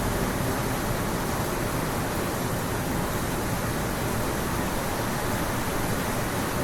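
Steady hiss of background noise, even and unchanging, with no speech.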